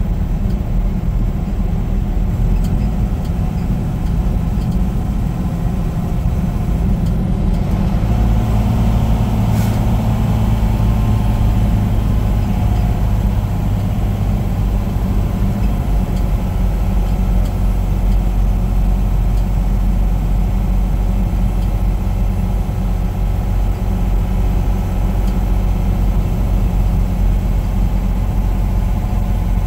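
Semi-truck engine and road noise while driving: a steady, loud low hum that strengthens slightly about eight seconds in.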